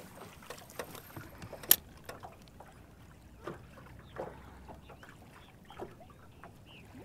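Small waves lapping against the boat hull: soft, irregular splashes and light knocks, with one sharp click about two seconds in.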